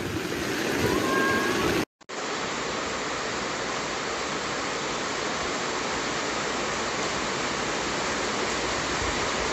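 Heavy rain pouring down in a steady, dense hiss of a downpour. It cuts out for a moment about two seconds in, then carries on unchanged.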